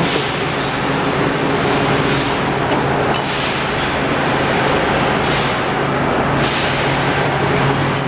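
Trumpf TruBend hydraulic press brake idling in a sheet-metal shop: a steady low hum under a loud hiss, with a few short swells of higher hissing.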